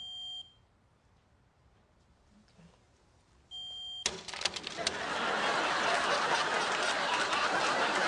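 Smoke detector giving two short high beeps about three and a half seconds apart, then a sharp knock, followed by a studio audience laughing loudly.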